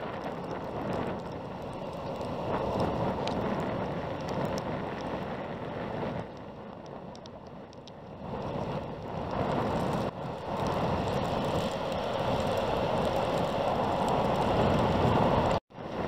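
Strong wind buffeting the microphone in a snowstorm, swelling and easing in gusts. It slackens for a couple of seconds after the middle, then picks up again, with a brief cut-out just before the end.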